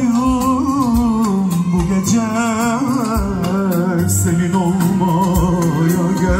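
Amplified live band music: a male singer sings a wavering, ornamented melody with vibrato over keyboard and drum hits.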